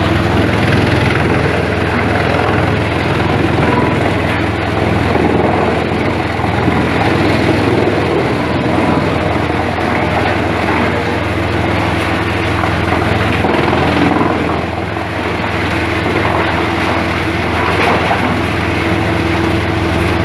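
Industrial wood-processing machinery running: a steady low hum with a constant rushing mechanical noise over it.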